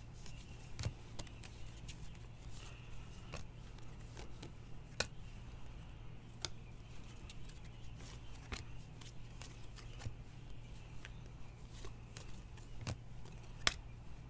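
A stack of trading cards being flipped through by hand, each card slid off the stack: irregular light clicks and snaps of card stock, one sharper snap near the end, over a steady low hum.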